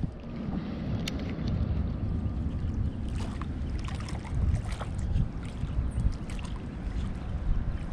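Wind buffeting the microphone in a steady low rumble, with a few faint clicks and ticks from a baitcasting reel being handled and cranked.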